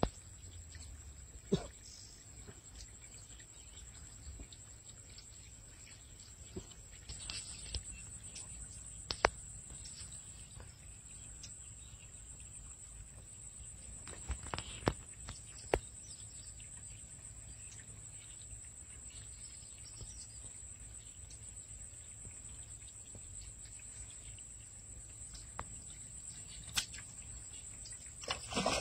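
Steady high-pitched insect chorus, growing louder a few seconds in, with a handful of sharp clicks and taps scattered through.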